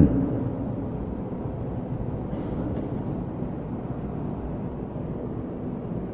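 Steady room tone through the lecture microphone: a low rumbling hum under an even hiss, with a faint steady tone.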